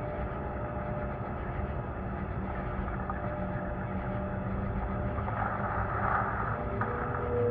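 Steady low rumble and hiss of lo-fi security-camera audio, with faint held tones underneath. A brief, slightly louder patch of noise comes about six seconds in.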